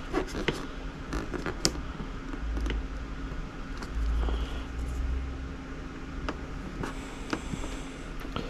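A clear plastic wind deflector being handled and pressed against a motorcycle's plastic fairing: scattered light taps, clicks and creaks over a faint steady hum.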